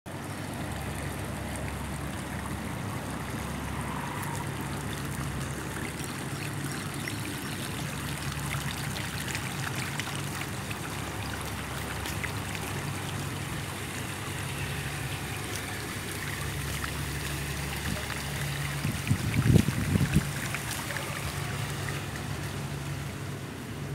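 Steady rushing, trickling water, with a brief low rumble about nineteen seconds in.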